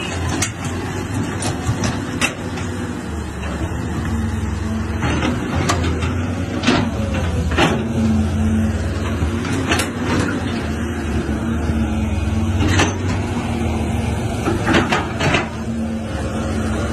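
Caterpillar excavator's diesel engine running steadily, with a dozen or so sharp clanks and knocks scattered through as the machine works its bucket and tracks in deep mud.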